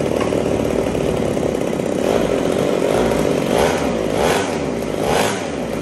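A small motor or engine running loudly and steadily, with brief surges about once a second in the second half.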